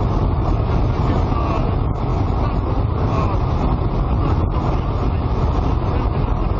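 Loud, steady rush of wind and engine noise in the cabin of a light aircraft in flight.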